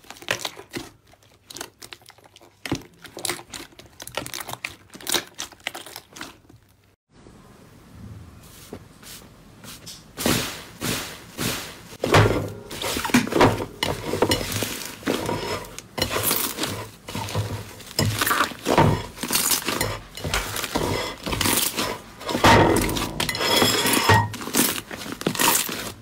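Hands squishing, stretching and kneading slime, making rapid sticky clicks, pops and crackles. The clicking is sparse and soft at first, stops briefly about seven seconds in, then becomes louder and denser from about ten seconds in as a thicker slime is pulled and kneaded.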